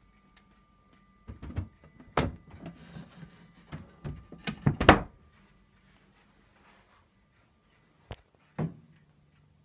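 Wooden knocks and thumps, like a lid or panel of the reed organ's wooden case being handled and shut. A cluster of knocks runs from about one to five seconds in, the loudest just before five seconds, then there is a sharp click and one more thump near the end.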